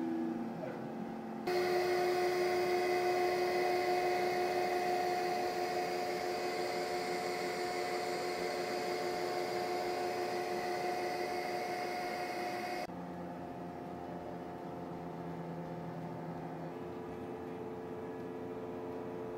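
AXYZ 6010 CNC router running under power, its spindle and vacuum hold-down equipment giving a steady whine over a hiss. It jumps louder about a second and a half in and drops abruptly near thirteen seconds to a quieter, lower-pitched hum.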